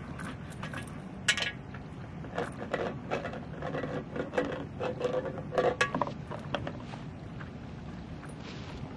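Siberian huskies at a metal water bowl: irregular metallic clinks and jangles as the bowl is knocked while they drink, along with the rattle of a chain leash, busiest in the middle of the stretch. Light wind on the microphone underneath.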